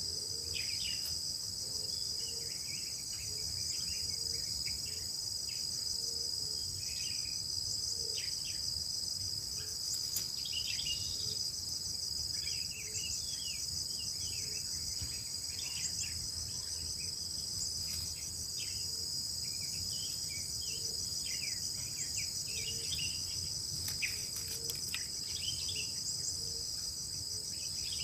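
Steady, high-pitched insect chorus with a fine pulsing trill, with many short bird chirps scattered over it.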